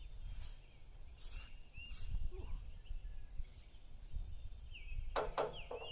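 Small birds chirping repeatedly over a low background rumble, with a few knocks from handling around the portable sawmill, two sharper ones near the end.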